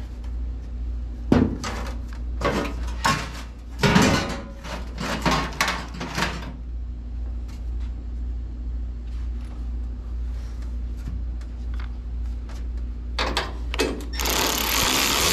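Metal tools and hardware clattering and knocking as bolts, washers and nuts are handled, over a steady low hum. About a second before the end, a cordless power tool starts running a cab-mount bolt down, loudly and continuously.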